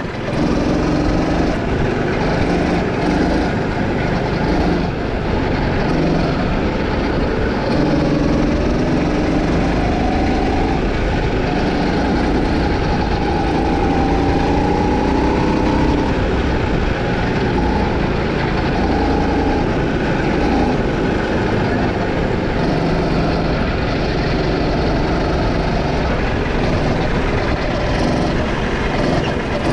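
Go-kart's small petrol engine running hard through a lap, its pitch rising and falling with the throttle, over a steady rush of noise.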